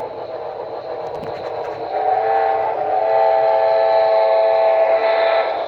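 Model Santa Fe 4-8-4 Northern steam locomotive's onboard sound sounding a chime steam whistle, one long chord of several tones held for about three and a half seconds, starting about two seconds in. A steady hiss of running sound continues underneath.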